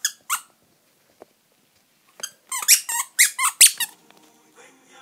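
High-pitched squeaks, a few at the start and then a quick run of about eight between two and four seconds in, each bending in pitch. Soft music with held notes comes in near the end.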